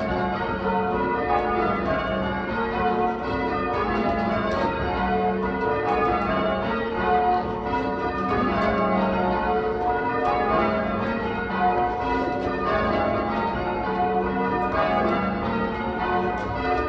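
A ring of eight church bells, mostly Taylor-cast, with a 14 cwt tenor in F#, rung full-circle in call changes. The strokes follow one another in a steady, unbroken rhythm.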